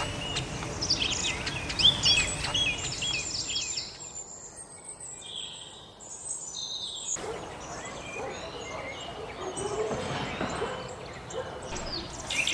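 Songbirds chirping in quick repeated phrases for the first few seconds, then fading; later the background shifts to a quieter outdoor ambience with scattered chirps.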